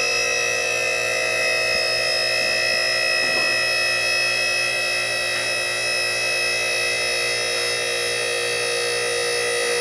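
QuickJack BL-5000SLX power unit's electric motor and hydraulic pump running steadily, a continuous whine, as it pumps fluid to the lift frames and raises the car.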